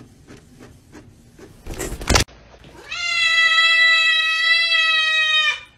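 An inkjet printer clicks faintly about three times a second as it feeds a page, followed by a brief loud rustle. Then comes the loudest sound: a cat's long, steady meow lasting nearly three seconds, dipping slightly in pitch as it fades near the end, from a tabby hanging off a mini basketball hoop.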